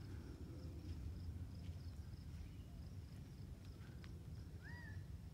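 Quiet desert ambience: a steady low rumble, a faint high insect drone, and one short rising bird chirp about three quarters of the way through.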